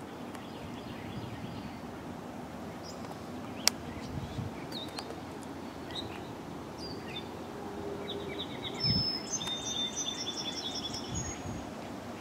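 Songbirds chirping and trilling over a steady outdoor background hiss, the trills thickest in the latter half. There is a single sharp click about four seconds in.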